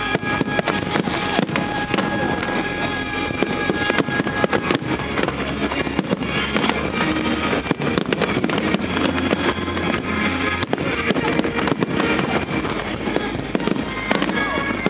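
Fireworks bursting in a rapid, continuous barrage of bangs and crackles, with music playing underneath.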